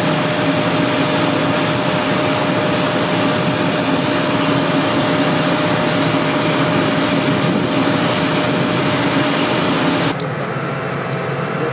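John Deere T660 combine harvester running as it harvests: a loud, steady drone of engine and threshing machinery with a held high tone. Near the end the sound drops suddenly to a quieter, duller version.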